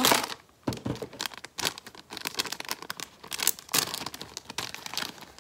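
A small printed blind-bag packet crinkling and being torn open, a run of irregular rustles and rips.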